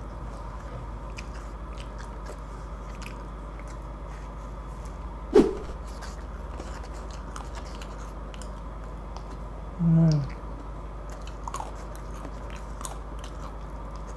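Someone eating a McFlurry with a plastic spoon: faint clicks of the spoon stirring and scraping in the paper cup and quiet chewing of crunchy biscuit pieces, over a steady low hum. There is a sharp sudden sound about five seconds in and a short hummed "mm" about ten seconds in.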